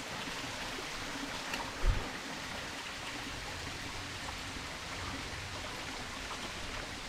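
Steady hiss of water, with one low thump about two seconds in.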